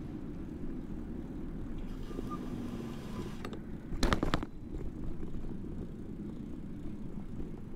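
Steady low road rumble from a moving vehicle, carried through the microphone's suspension mount, with a brief cluster of sharp knocks about four seconds in.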